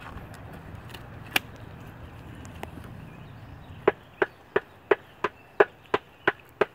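A run of sharp, evenly spaced taps or knocks, about three a second, starting about four seconds in, after a single sharp snap about a second and a half in.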